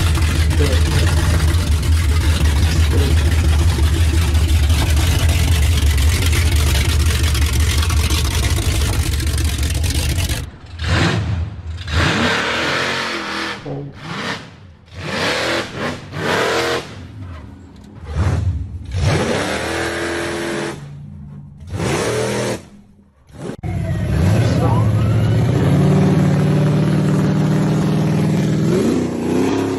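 Loud exhaust of a supercharged Chevy Caprice donk's V8. A deep, steady rumble for about the first ten seconds gives way to short revs that rise and fall, broken by cuts. Near the end the engine accelerates hard, its pitch climbing for several seconds.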